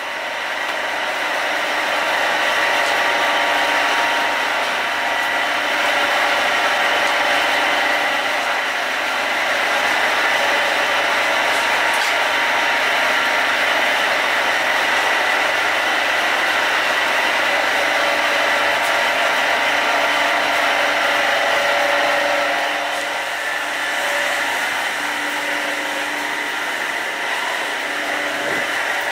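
A motor-driven fan whirring steadily with several held tones, easing off slightly about three quarters of the way through.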